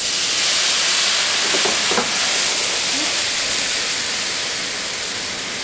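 Hamburger steaks in a hot frying pan bursting into a loud sizzle as the pan flares up in flames. The hiss starts suddenly and fades slowly.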